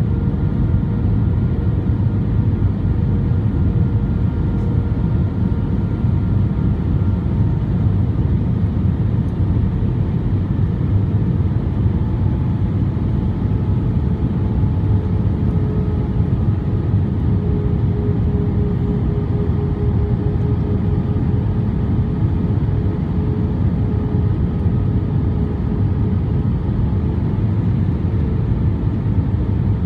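Inside the cabin of an Airbus A320 during descent: a steady low roar of engines and airflow, with faint hum tones from the engines that shift slightly in pitch midway.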